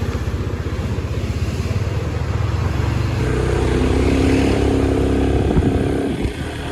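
Small motorbike engine running with a steady low putter. About three seconds in it revs higher, then eases off again shortly before six seconds.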